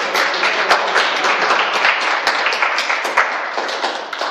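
A group of people clapping their hands in applause: dense, continuous clapping.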